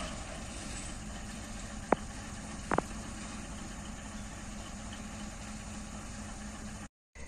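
Diesel-electric locomotive idling some distance off, a steady low hum, with two short sharp knocks about two and three seconds in.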